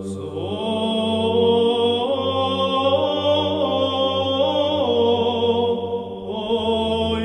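Orthodox church chant: a steady low drone is held under a single melodic voice line that moves up and down in steps.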